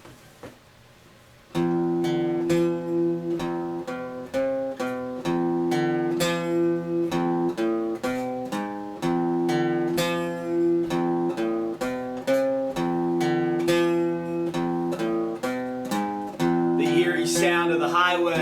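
Acoustic guitar intro to a song: after a second and a half of near silence, chords are played in a steady rhythm, the chord changing every second or so. Near the end a singing voice comes in.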